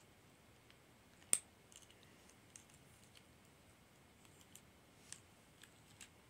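Small plastic beads of a bracelet clicking as it is handled: one sharp click about a second in, then scattered faint ticks.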